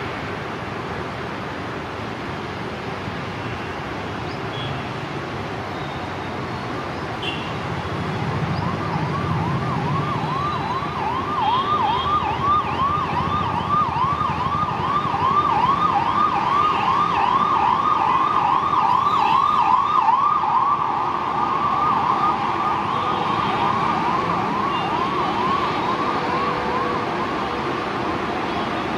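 Passenger train hauled by a WAP-7 electric locomotive approaching with a low rumble that grows louder. From about nine seconds in, its wheels squeal on the curve in a high tone that wavers up and down about three times a second, loudest around twenty seconds and fading near the end.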